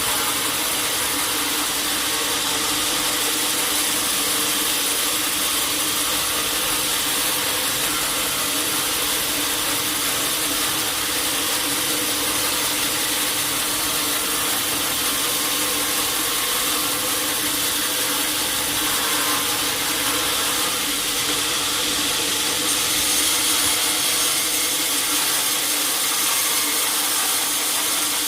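Sawmill machinery running steadily: a constant whirring hiss with a few steady low hums underneath.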